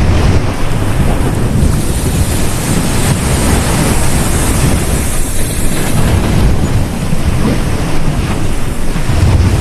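Sea waves breaking and washing on a beach, a loud continuous rush of surf with a heavy low rumble, and wind buffeting the microphone.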